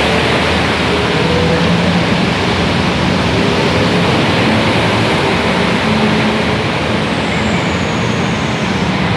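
Heavy rain and traffic driving through a flooded street: a loud, steady hiss of rain and splashing water, with a low engine hum under it.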